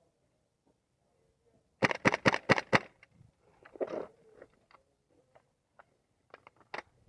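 Airsoft gun firing a quick string of shots lasting about a second, a sharp crack for each shot. Scattered fainter clicks and knocks follow.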